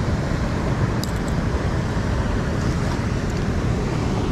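Steady rushing noise with no clear pitch, heaviest in the low end, with a few faint high clicks about a second in.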